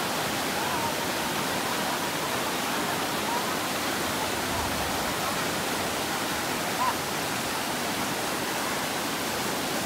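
Steady rush of flowing water, with faint distant voices.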